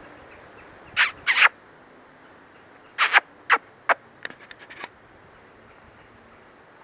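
Vulture giving short, sharp woof-like calls that sound like a dog barking: a quick pair about a second in, three more between about three and four seconds, then a few fainter clicks.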